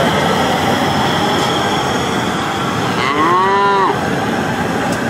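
A cow moos once, about three seconds in: a single call just under a second long that rises and then falls in pitch. Under it runs a steady rushing noise.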